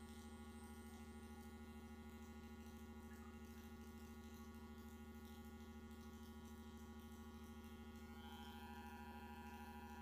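Near silence: a faint, steady electrical hum and buzz made of many held tones, shifting slightly near the end.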